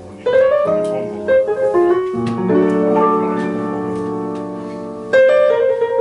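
Solo jazz piano playing chords with a few quick runs. Loud chords are struck about a quarter second in, again near two seconds and near five seconds, each left ringing.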